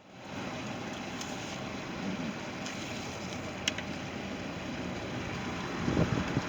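Ebbtide boat's engine idling steadily, running again after a no-start repair. A sharp click a little past halfway and a brief louder rumble near the end.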